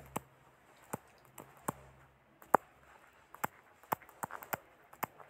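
Irregular sharp taps and clicks of a stylus on a tablet touchscreen while handwriting, about a dozen, the loudest about two and a half seconds in.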